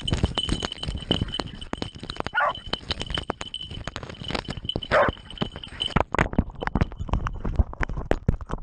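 Hunting dogs barking and snarling in a scuffle with a wild boar, heard through a dog-worn camera that knocks and scrapes against fur all through, with two louder calls. A steady high whine stops about six seconds in.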